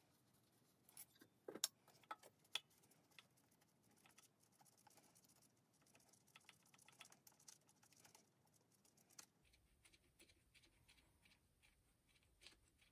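Near silence with faint handling clicks and light knocks as gloved hands work a power steering pump and its fittings loose from the engine: a cluster of sharp clicks about one to three seconds in, then scattered soft ticks.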